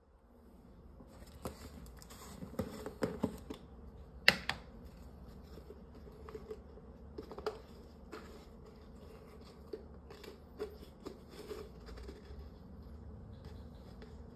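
Opening a plastic pre-workout powder tub and fishing out the scoop: scattered plastic clicks, taps and rustles, with one sharp click about four seconds in, over a steady low hum.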